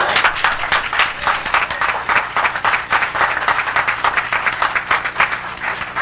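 Audience applauding: many hands clapping in a dense, steady patter that dies down near the end.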